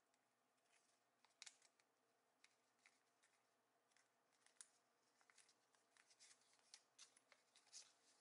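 Faint, irregular crinkling and crisp little clicks of origami paper being creased and pressed by fingers, growing busier from about halfway in.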